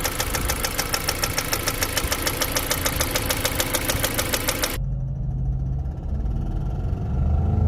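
2015 Jeep Compass 2.4-litre four-cylinder engine idling with a rapid, even ticking. About two-thirds of the way in the sound suddenly turns muffled and the ticking drops away, leaving a low engine hum that starts to rise in pitch near the end.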